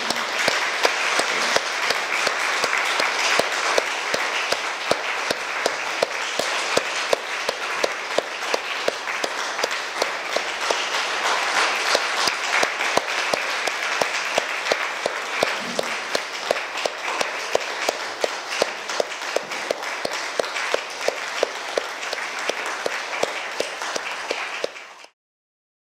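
Audience applauding steadily, with single claps close by standing out, until the sound cuts off abruptly near the end.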